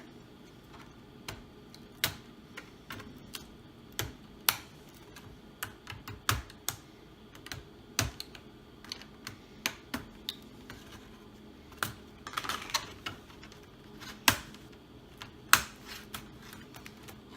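Dell Inspiron 3576 laptop keyboard being pried out of its plastic frame: irregular sharp plastic clicks and a few louder snaps as its retaining clips are pressed and released, with a brief scraping rustle about twelve seconds in.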